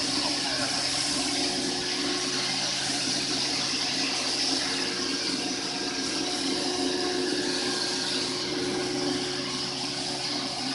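CNC stone machining center running with water coolant spraying: a steady hiss of water over a constant low machine hum.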